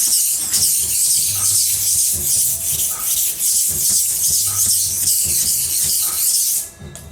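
Steady, harsh hiss of a knife blade being ground against an abrasive, breaking off briefly near the end.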